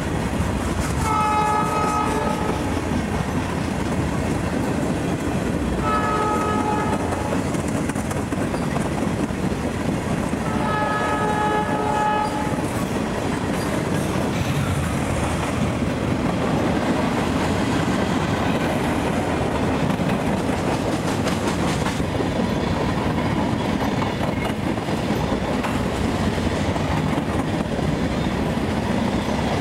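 A train's multi-tone horn sounds three blasts about five seconds apart, over the steady rumble of the train rolling by with its wheels clicking over the rail joints, which continues after the horn stops.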